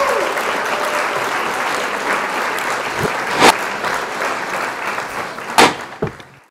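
Applause: a steady patter of many hands clapping that fades out at the very end, with two loud sharp knocks, one about halfway through and one near the end.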